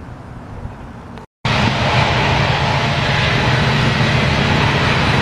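BNSF diesel-electric locomotives moving a coal train past under power: a loud, steady engine drone with wheel and rail noise. It comes in abruptly after a moment's dropout about a second in, following a quieter background.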